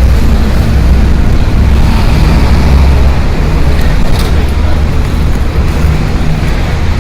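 City street traffic: motor vehicles passing in a steady low rumble with road noise over it, and a brief sharp click about four seconds in.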